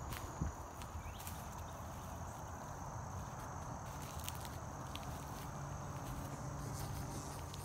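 Outdoor ambience: insects droning steadily at a high pitch, over a low rumble, with a few faint footsteps.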